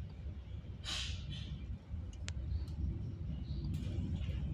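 Low steady rumble inside a passenger train carriage as the train pulls out of a station, with two short hisses about a second in and a sharp click a little after two seconds.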